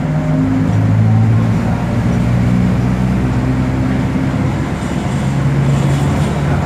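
Diesel engine of a Volkswagen 17.230 OD bus running steadily, its low drone shifting slightly in pitch as engine speed changes.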